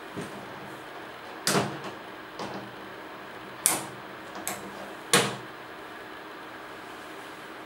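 Padlock and steel hasp on a plastic cash box being handled as the lock is opened: about six sharp metal clicks and knocks at uneven intervals, the loudest about a second and a half in and again about five seconds in, over a steady faint hiss.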